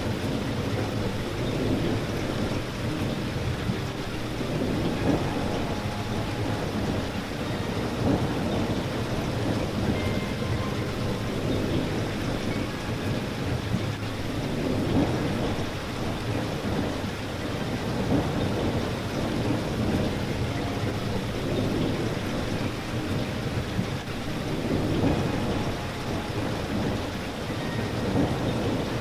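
Steady rain falling: a dense, continuous patter of drops, heavy in the low end, that swells and eases slightly without letting up.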